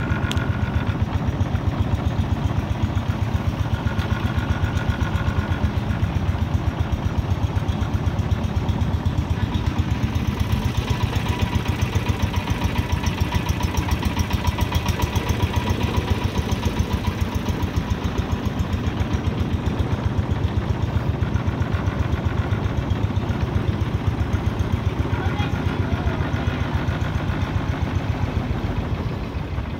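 Long-tail boat engine running steadily under way, with a regular thudding beat, easing off slightly near the end.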